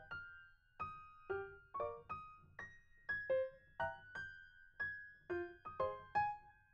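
Background music: a slow, gentle melody of struck keyboard notes, each ringing out and fading, a few notes a second.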